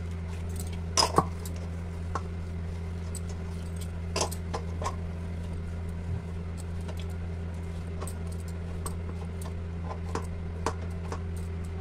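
Hand kneading soft wheat-flour dough in a stainless steel bowl: a few scattered light knocks and clinks against the steel, over a steady low hum.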